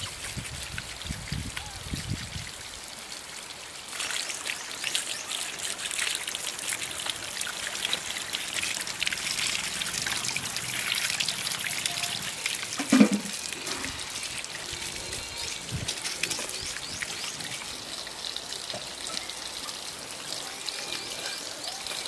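Water trickling and splashing, growing stronger about four seconds in, with one louder knock around the middle.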